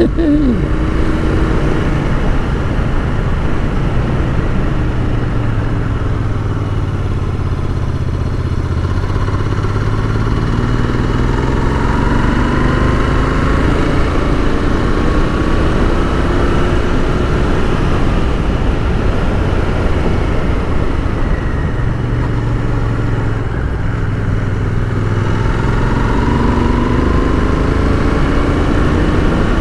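Royal Enfield Continental GT 650's parallel-twin engine running under way. Its note rises twice as the bike accelerates, about ten seconds in and again near the end.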